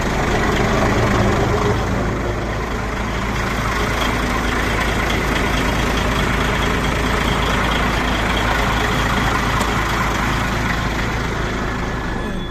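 DAF XF95 truck's inline-six diesel engine idling steadily, heard up close beside the chassis. It is idling to build air pressure while the frozen air system is not yet pumping.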